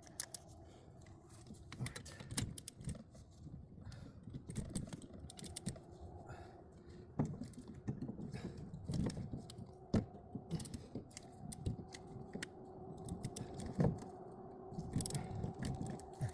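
Metal hand tools and parts clinking, clicking and rattling as they are handled and set down, in irregular short knocks, with a faint steady hum in the background during the second half.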